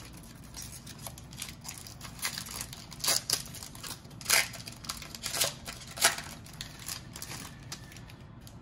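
Foil wrapper of a Panini Mosaic basketball card pack crinkling and tearing as it is opened by hand, in irregular rustles with several sharper crackles.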